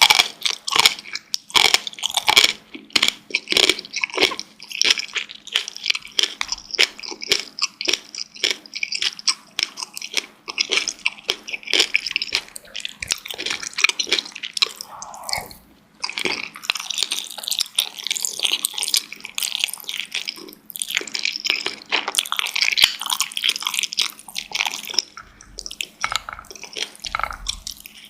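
Close-miked eating of dumplings: wet chewing and smacking with soft bites and crunches, in irregular runs broken by brief pauses.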